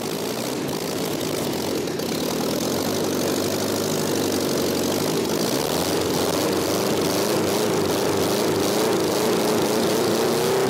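Home-built inline-six engine, made from two Lada 2101 four-cylinder engines, running on a test stand with all six cylinders firing. It grows a little louder over the first few seconds and then runs steadily. Its two carburetors are not yet synchronized.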